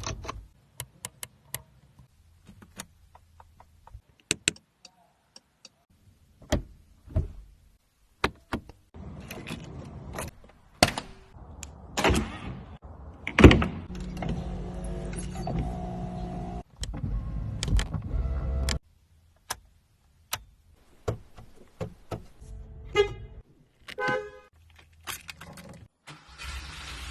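Porsche car sounds: a string of sharp clicks and knocks, an engine running for several seconds in the middle, and a horn-like tone near the end.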